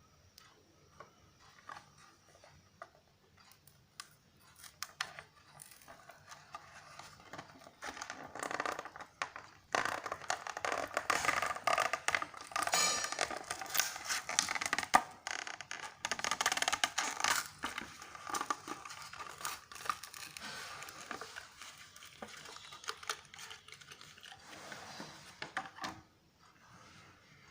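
Plastic and card toy packaging being torn and crinkled open by hand: a busy run of crackling, rustling and sharp clicks, loudest in the middle.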